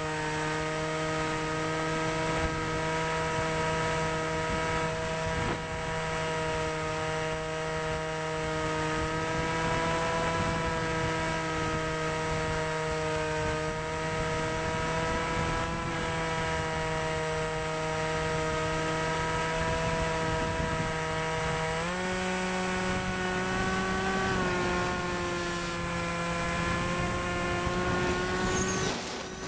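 Wild Hawk RC airplane's micro jet motor running in flight, a steady pitched whine over rushing air, recorded close up from an onboard camcorder. The pitch steps up about three-quarters of the way through, then eases back a little.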